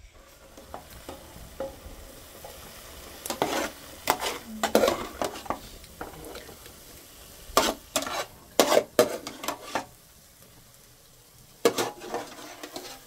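A metal ladle scraping and clinking against a metal pot as diced pumpkin is stirred over a wood fire, in three bouts of stirring, with a faint sizzle underneath.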